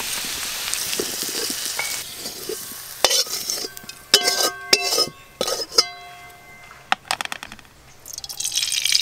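Potatoes sizzling in hot oil in a metal karahi, fading over the first few seconds. A metal slotted spoon then clinks and rings against the karahi and a steel bowl several times as the fried potatoes are lifted out. Near the end a fresh sizzle rises as oil is poured into the hot karahi.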